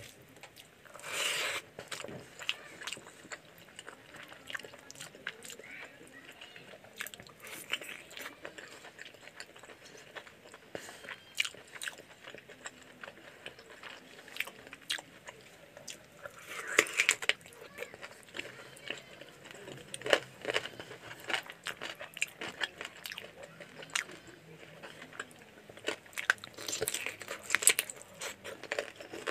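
Close-miked eating by hand: fingers squishing rice into chicken gravy and wet chewing of rice and chicken, with many short mouth clicks and a few louder bursts of mixing.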